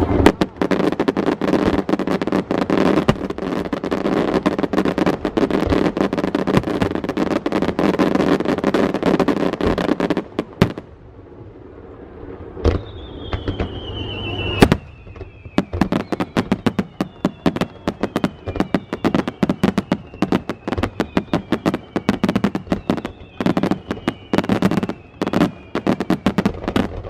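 Aerial fireworks: a dense, rapid crackle of bursting shells for about ten seconds, then a short lull. A sharp bang follows, with a high whistle slowly falling in pitch and another run of spaced cracks and pops to the end.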